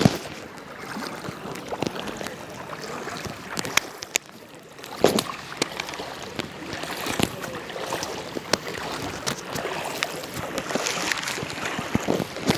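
Rain falling steadily, with scattered sharp drop hits close by and a few louder splashes.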